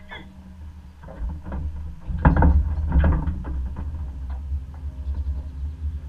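Floodwater rushing and lapping close to the microphone as a steady low rumble, with a cluster of louder splashes and knocks about two to three seconds in.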